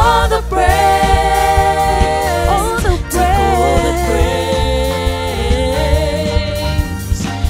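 Live gospel praise song: women's voices singing long held notes over a band of electric guitars, bass, keyboard and drums.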